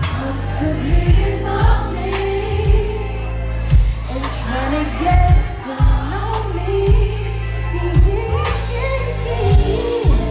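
Live R&B song: a woman sings over a band with a deep, heavy bass line and drums.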